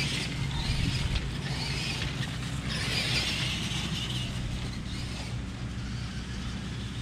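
Tamiya Super Clod Buster radio-controlled monster truck driving over grass, its stock electric motors and gearboxes whirring steadily, with brighter surges right at the start and again about three to four seconds in as it speeds up.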